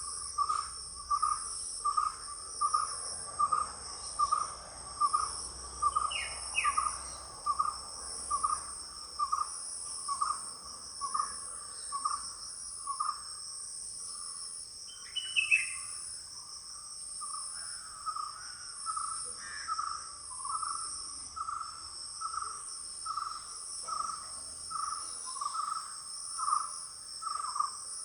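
Insects trilling steadily at a high pitch, with a bird repeating a single note about twice a second and giving a few short, falling higher calls.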